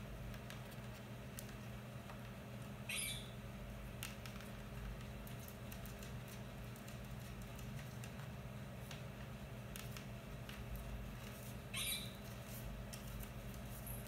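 Indian ringneck parakeet giving two short, high squawks about nine seconds apart, with light clicks and taps of its beak and claws on the blind between them.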